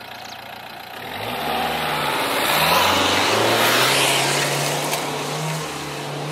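Renault Duster AWD's 1.5 dCi diesel engine revving hard as the SUV climbs a loose sandy slope, its wheels spinning and throwing sand. The engine note rises about a second in, is loudest as it passes close by, then holds steady as it pulls away up the hill.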